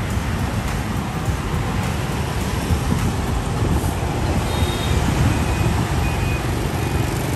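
Busy street traffic: motorbike engines running past and a medium cargo truck's diesel engine going by close, with a steady rumble that swells a little as the truck passes. A few faint short high beeps sound in the second half.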